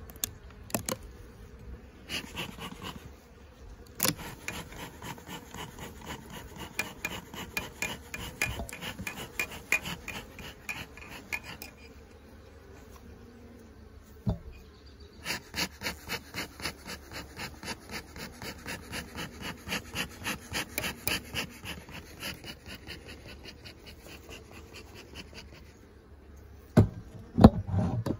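Metal hive tool rasping and scraping on the wooden hive, fast repeated strokes in two long runs, with a few sharp knocks and some heavy low thumps near the end.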